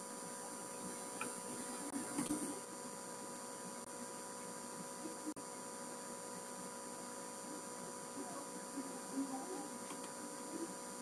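Steady electrical hum made of several constant tones over a faint hiss, with a few faint brief noises about two seconds in and again near the end.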